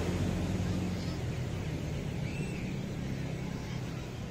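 A motor engine running steadily with an unchanging low drone, over the wash of surf.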